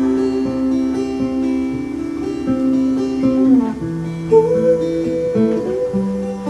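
Live acoustic band playing an instrumental passage without vocals: steadily strummed acoustic guitar under long held notes, which slide down about three and a half seconds in and up again about a second later.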